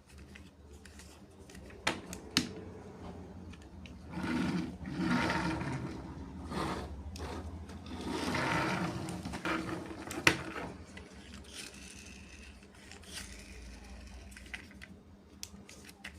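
Plastic toy construction vehicles being handled: a few sharp clicks and two longer whirring, scraping passages, over a steady low hum.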